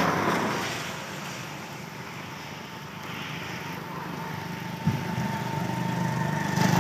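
Road traffic on a wet road. A passing vehicle's tyre noise fades away over the first second, then a motor vehicle's engine hum rises and grows louder near the end.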